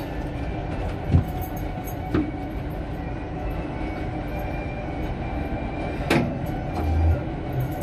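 Passenger elevator car travelling down its shaft: a steady low rumble, with a few sharp clicks and a brief low thump near the end.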